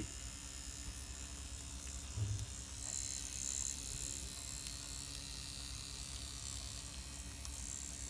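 Jack Hammer V3 rotary tattoo machine running steadily, its electric motor and spinning cam driving the spring-loaded needle in a constant buzz, set to about 6 to 6.5 volts. A soft bump about two seconds in.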